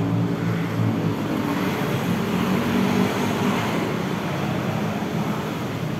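Motor vehicle running steadily with road and wind noise: a low engine hum under a continuous rush of noise.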